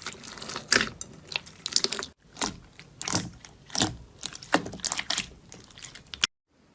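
Slime being squeezed and kneaded by hand close to the microphone, giving a run of crackling, popping bursts a little under one a second. There is a short break about two seconds in, and the sound cuts off suddenly near the end.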